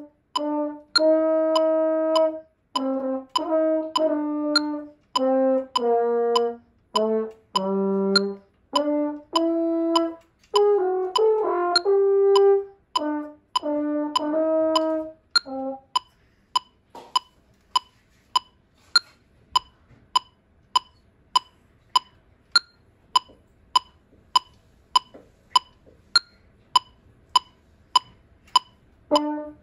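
French horn playing a phrase of separate notes over a metronome ticking at 100 beats a minute. About sixteen seconds in the horn stops and the metronome ticks on alone.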